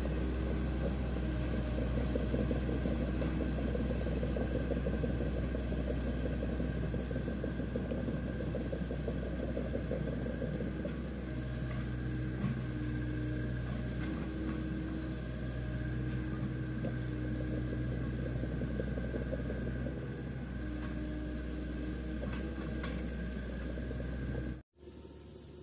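Hitachi EX100 excavator's diesel engine running steadily as the machine travels on its crawler tracks, slowly growing fainter. The engine sound cuts off suddenly near the end, leaving a faint hiss.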